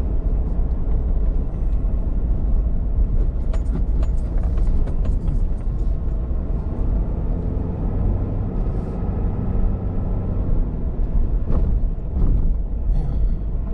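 Vehicle driving slowly on a gravel road, heard from inside the cabin: a steady low rumble of engine and tyres, with scattered clicks of gravel under the tyres.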